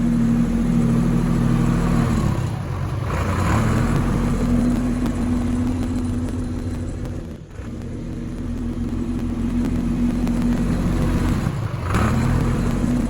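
A vehicle engine running steadily under load, easing off briefly about two and a half seconds in and again near the end before picking back up, with a short break about halfway through.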